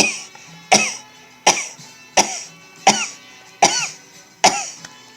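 A man sneezing in a rapid, unbroken string, about eight short, sharp sneezes roughly three-quarters of a second apart, each the same forceful burst.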